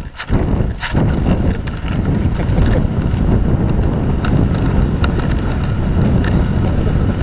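Dog sled runners scraping and rumbling steadily over packed snow as a team of Siberian huskies pulls the sled, with wind noise on the microphone.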